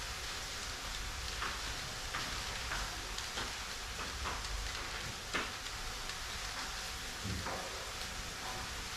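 3x3 Rubik's cube being turned by hand: a handful of irregular plastic clicks as its layers are twisted, over a steady recording hiss.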